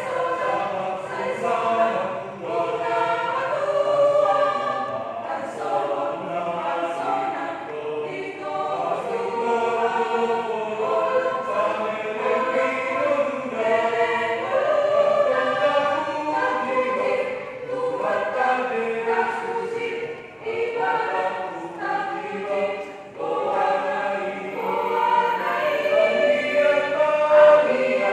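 A group of voices singing together in chorus, an unbroken song with only brief dips between phrases.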